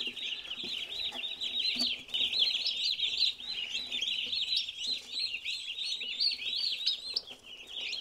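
A brood of baby broad-breasted white turkey poults peeping continuously, many high, short calls overlapping.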